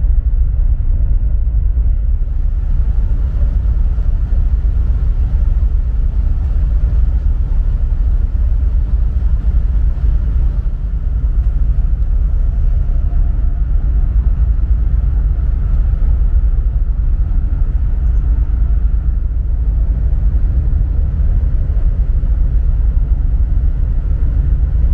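Steady low rumble on the open deck of the ferry Hamayu as it moves along the quay to berth.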